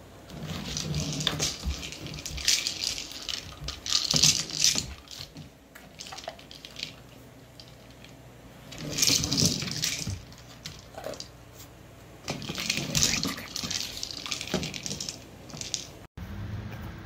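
A dog nosing and mouthing a hard orange toy ball on a hardwood floor, clattering and rattling in about four bursts with quieter pauses between.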